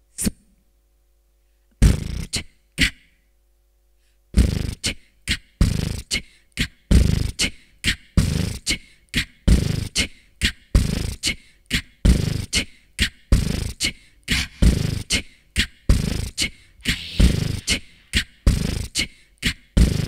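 Vocal beatboxing into a handheld microphone: a single click, then a few isolated mouth-percussion sounds, and from about four seconds in a steady, repeating beat of kick-drum-like thuds and hissy snare-like hits, built up with live looping.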